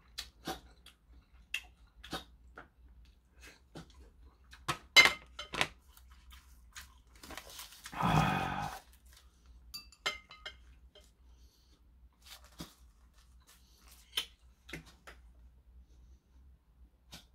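Close-up eating sounds: scattered clicks and smacks of chewing and wooden chopsticks against a ceramic bowl of kimchi-stew ramen, with dry roasted seaweed sheets being handled. About eight seconds in, a denser sound under a second long stands out from the rest.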